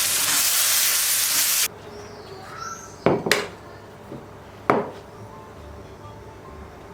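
Food sizzling in a frying pan, cut off abruptly about a second and a half in. After that the kitchen is quiet except for a few sharp clinks or knocks, like utensils or dishes being set down.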